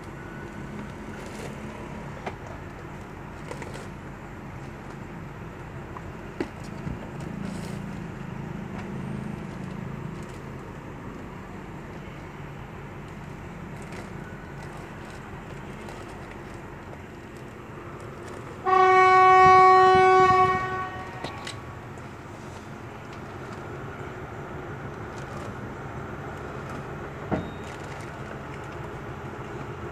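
Train horn sounding one steady note for about two seconds, about two-thirds of the way in, over a steady low rumble.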